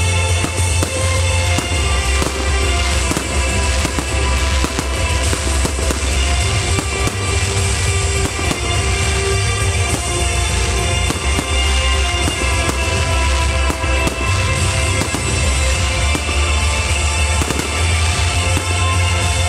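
Aerial fireworks shells bursting and crackling in quick succession over loud music with heavy bass.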